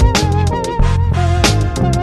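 Upbeat background music with a steady beat and a pitched melody line.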